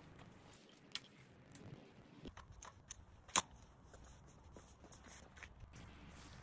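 Sharp metal clicks and clacks of a Brompton folding bike being folded, its handlebar stem swung down. The loudest single clack comes about three and a half seconds in.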